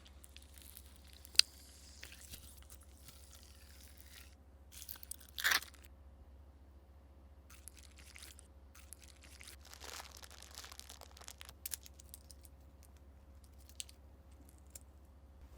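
Scattered small kitchen handling sounds: light clicks and brief rustling or scraping. One sharp click comes about a second and a half in, and the loudest is a short rustle around five and a half seconds in. A low steady hum runs underneath.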